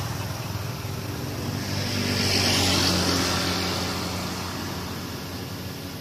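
A motor vehicle's engine passing by: a steady low hum that swells louder about two to three seconds in and then fades away.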